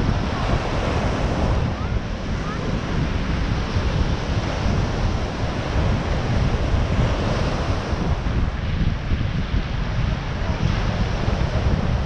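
Ocean surf breaking and washing up a sandy beach in a steady rush, with wind buffeting the microphone in a low rumble.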